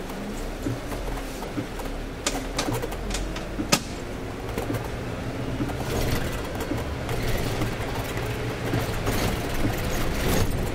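Scania City Wide city bus driving on a rain-soaked street, heard from the driver's cab: a steady low engine hum under the hiss of tyres on wet road and rain, with the windscreen wipers sweeping. A few sharp clicks sound about two to four seconds in.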